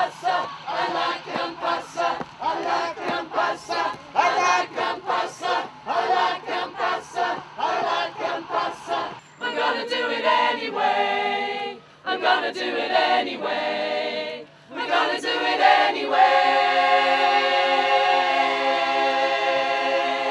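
A community choir singing a cappella. It opens with a quick, rhythmic run of short notes, then moves into long held chords, the last held for about four seconds.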